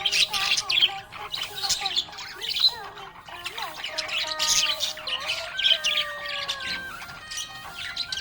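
Budgerigar chirping and chattering in quick, busy bursts of high notes.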